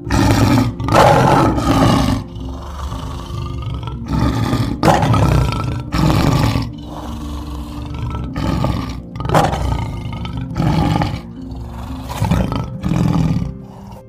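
Male lion roaring in a series of deep calls, about nine in all, each lasting under a second, over steady background music.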